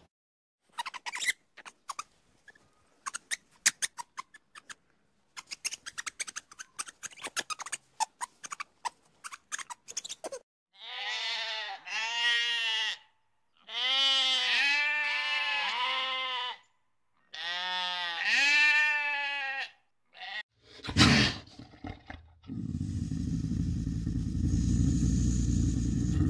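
An animal bleating: three long, quavering calls in the middle, after a run of sharp irregular clicks. A low, steady rumble starts near the end.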